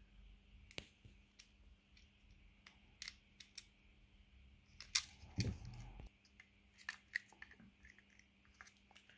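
Hands handling the plastic case and loose replacement screen of a Garmin Edge 1030 bike computer: faint scattered clicks and taps, with a soft low thump about five seconds in.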